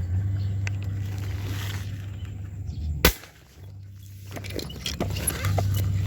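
A steady low hum, then one sharp snap about three seconds in: a spear fired at a fish, and the shot hits.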